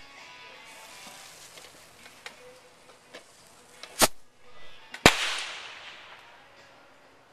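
A firework going off: a hiss, then two sharp bangs about a second apart, the second trailing off in a fading hiss of sparks.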